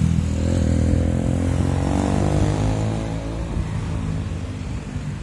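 Road traffic at a roundabout: cars and a van driving past close by, their engines loudest at the start and slowly fading as they pull away.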